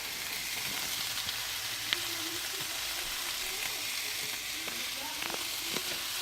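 Sliced peppers and onions sizzling in sesame oil in a stainless steel non-stick wok: a steady high hiss, with a few faint clicks.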